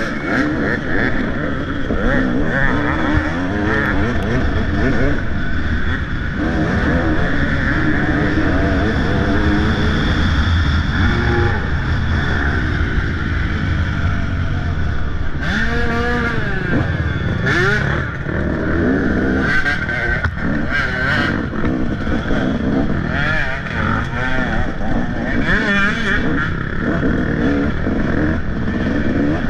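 Motocross dirt bike engine revving hard and continuously, its pitch repeatedly rising and falling as the bike speeds up and slows, with a few short bursts of noise partway through.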